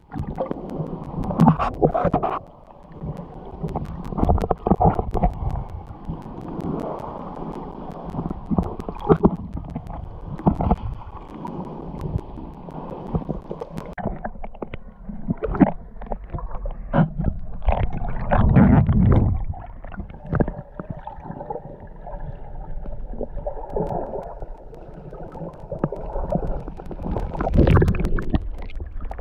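Muffled water sound picked up by a camera held underwater: gurgling and sloshing with scattered clicks and knocks, and a louder low rumble about two-thirds of the way through. Near the end there is water splashing as a hand scoops at the surface.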